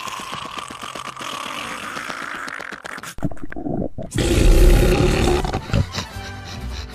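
Cartoon sound effects: a steady hiss, then about four seconds in a loud, deep monster roar from the Venom character lasting about a second and a half.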